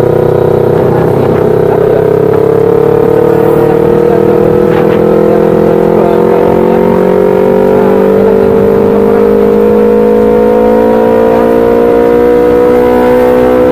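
Yamaha R25 250 cc parallel-twin engine in an old Yamaha Vixion, heard from the rider's seat, pulling steadily in one gear with its pitch rising slowly throughout.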